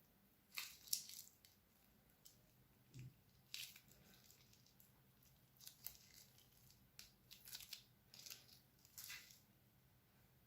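Crunchy slime being squeezed and pressed, giving short bursts of crisp crackling and popping with quiet gaps between them.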